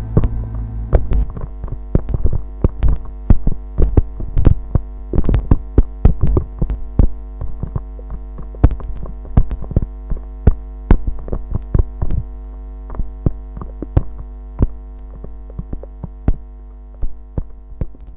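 Closing section of a song: a held, droning chord with a strong low hum under it, scattered with irregular clicks and crackles, slowly fading away near the end.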